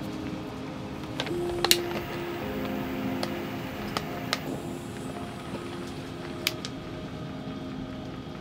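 A butane torch lighter clicks and lights, its jet flame hissing for a few seconds as it lights a candle, with a few small clicks and knocks around it. Soft background music runs underneath.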